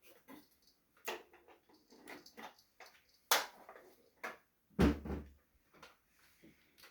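Pineapple conure moving about on its rope play stand: scattered scratchy clicks and knocks from its claws and beak, with a sharp click a little past three seconds and a heavier thump about five seconds in.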